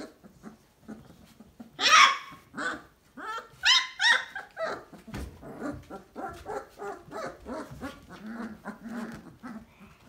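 Three-week-old basset hound puppies yelping: one loud, high yelp about two seconds in, a run of shrill yips after it, then a quick string of smaller squeaky calls that grows fainter toward the end.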